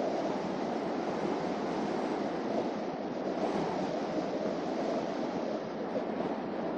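Steady road noise of a moving car: tyres rolling on pavement with wind rush, an even rumble without any engine note or other distinct events.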